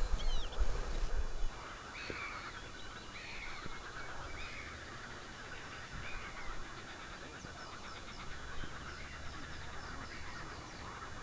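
Wild birds calling over open water: four arched calls about a second apart in the first half, with faint chirping of small birds throughout. A low rumble is heard for the first second or so.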